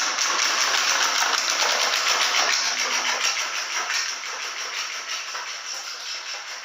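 Motorcycle engine with a loud aftermarket exhaust running hard, a dense rapid pulsing that eases off somewhat after about four seconds.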